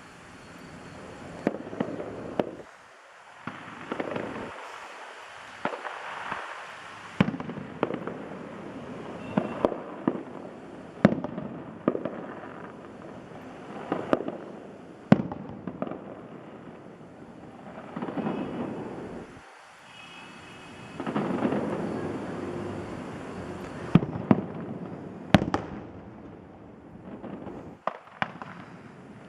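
Fireworks display: a long, irregular run of sharp shell bursts, well over a dozen, some in quick pairs, over a continuous din of noise between the bangs.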